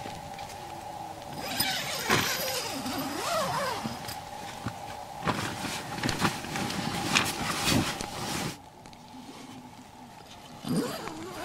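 Nylon tent and sleeping-bag fabric rustling and crinkling as someone moves and crawls about inside a tent, with a few sharp clicks, over a steady low drone. The rustling stops abruptly about eight and a half seconds in.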